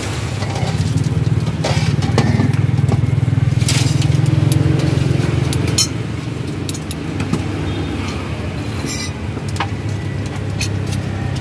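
Steady low rumble with scattered metal clinks as a wire skimmer stirs dumplings in a large steel wok. About six seconds in the rumble drops, and sharper clicks of scissors and tongs cutting on a plate follow.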